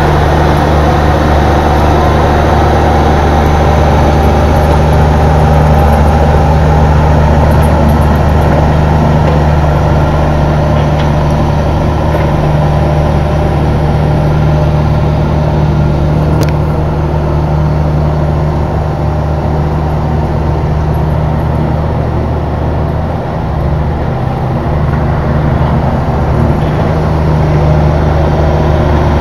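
Caterpillar 304 mini excavator's diesel engine running steadily.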